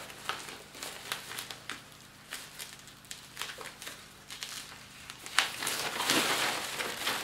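Thin protective wrap crinkling and crackling as it is pulled off a subwoofer cabinet by hand, a run of small crackles that grows louder and denser in the last couple of seconds.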